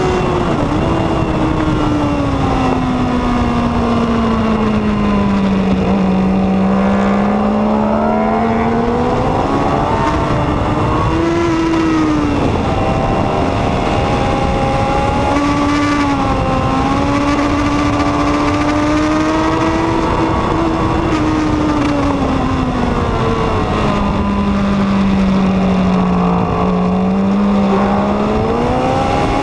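A 2014 Honda CBR1000RR SP's inline-four engine at racing speed, with wind rushing over the microphone. Its note sinks slowly and climbs back through the corners, rising and dropping briefly about twelve seconds in, then sinks and climbs again near the end.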